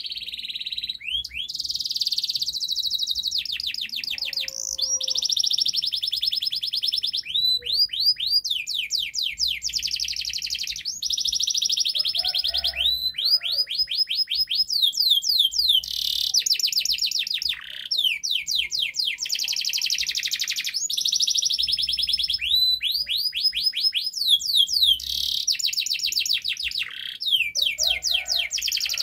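Domestic canary singing a long, unbroken song of fast trills. Each trill is a quick run of repeated falling notes, and the song moves to a new trill every second or two.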